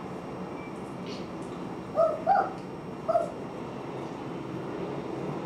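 A small dog yipping three times: two short high yips close together about two seconds in, then one more a second later, over a steady room hum.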